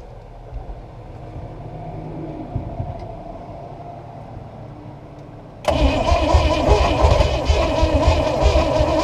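Chevrolet 350 small-block V8 inboard boat engine being cranked on the starter: after a few seconds of low rumble, it comes in loud and suddenly near the end with rapid uneven pulsing, firing on more than one cylinder without catching. The engine has sat dead for decades and is a little flooded.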